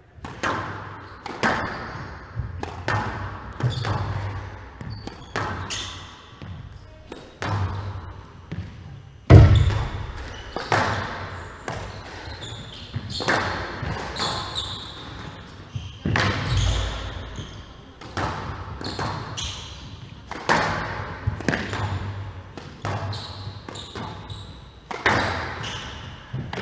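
Squash rally: the ball cracking off the rackets and walls about once a second, each strike echoing round the hall. Two heavier thuds come about nine and sixteen seconds in.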